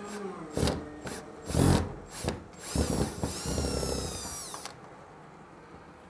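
Garbage truck stopping to collect: a series of heavy thumps and clanks, then a high mechanical whine that rises and falls in pitch for about two seconds and cuts off sharply.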